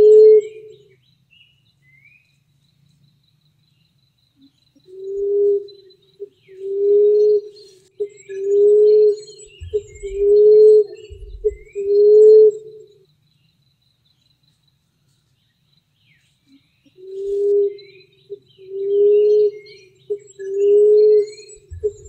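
Emerald dove cooing: low, single-pitched coos of under a second each, evenly spaced about a second and a half apart. They come in two runs of four or five with several quiet seconds between. Faint high chirps of small birds sound in the pauses.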